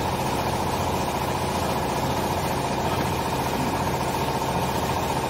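Steady drone of running workshop machinery, an even hum with a constant tone above it that does not change.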